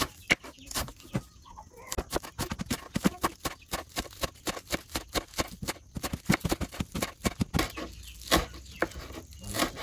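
A kitchen knife slicing spring onions on a wooden cutting board: a rapid, even run of sharp knocks as the blade strikes the board, several a second.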